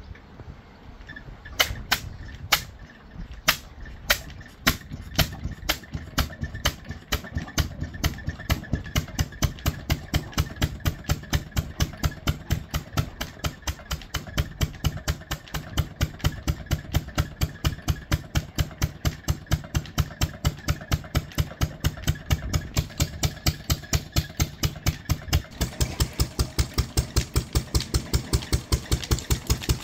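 1935 Ruston Hornsby 6PB single-cylinder stationary engine starting from cold. Its firing beats come slowly at first, quicken over several seconds, then settle into an even, steady run at about three beats a second.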